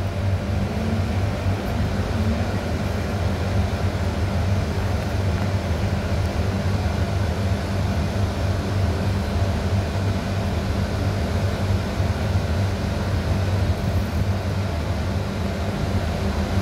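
Steady low mechanical hum of running machinery, even and unchanging throughout.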